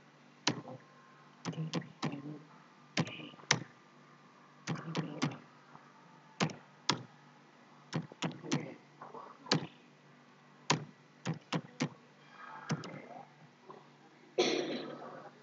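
Computer keyboard keystrokes, single sharp clicks typed at an uneven pace with short pauses, and a louder, longer thump near the end.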